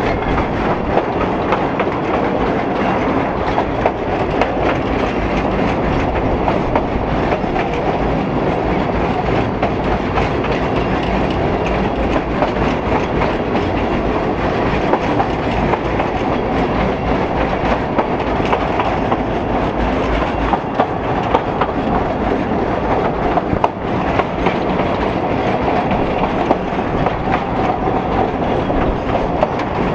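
Narrow-gauge passenger carriage running along the track, heard from on board: a steady rumble of wheels on rails broken by frequent sharp clicks of the rail joints.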